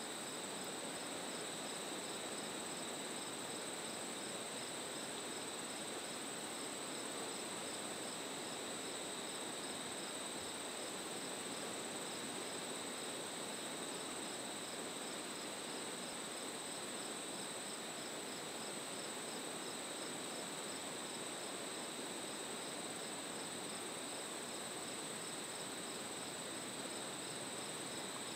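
Chorus of crickets singing: a steady high trill with a regular pulsed chirping over it, over a soft even hiss.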